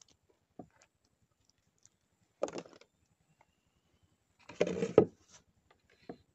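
A few short wooden knocks and handling rustles from a bamboo fishing pole and line being handled in a small boat. They come in two brief clusters, the louder one about two-thirds of the way through, with quiet between.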